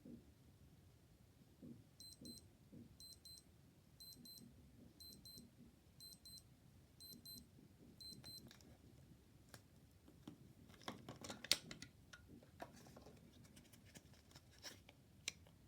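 An old digital watch's alarm beeping, faint and high, in groups of four quick beeps about once a second, seven times over, then stopping. A run of scattered small clicks and knocks follows, with the loudest knock a few seconds later.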